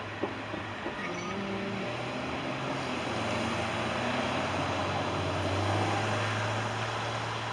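Norfolk Southern autorack freight train rolling by: a steady rumble of the cars' wheels on the rails that swells a little after about three seconds.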